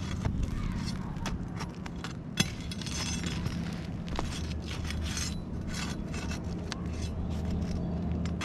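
Asphalt ridge shingles being scraped and pried at to get to their nails, with repeated short scrapes and rustles and one sharp click a little over two seconds in, over a steady low rumble.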